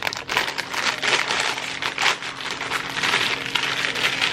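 Snack packaging crinkling and rustling continuously, a dense crackle of many small clicks.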